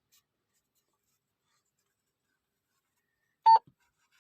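Near silence, then, about three and a half seconds in, a single short, sharp click with a brief ringing tone.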